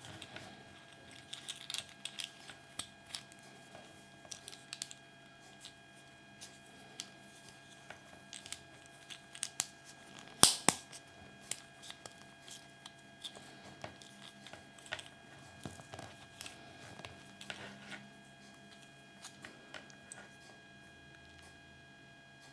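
Irregular small clicks and taps of small plastic toy pieces being handled and fitted together, with one sharper snap about ten and a half seconds in.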